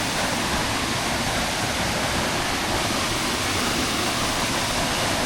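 Waterfall, its water falling and rushing steadily.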